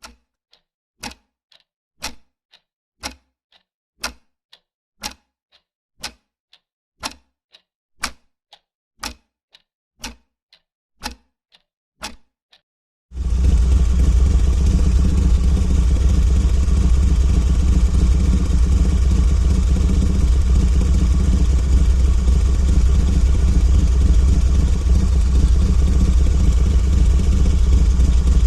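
A series of sharp clicks, about two a second with every other one louder. About 13 seconds in, a Harley-Davidson motorcycle's V-twin engine cuts in abruptly and runs loudly and steadily at idle.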